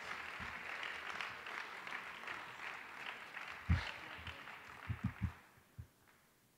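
Audience applause dying away, with a few low thumps near the end before it goes quiet.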